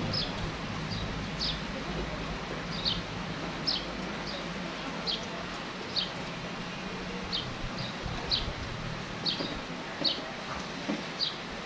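A small bird chirping repeatedly: short, high, slightly falling chirps about once a second, at irregular spacing, over a steady low hum.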